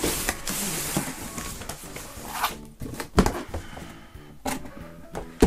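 Cardboard boxes being handled: a long scraping slide of cardboard on cardboard as the inner box is pulled out, then several separate knocks and taps as the box is set down and its lid opened.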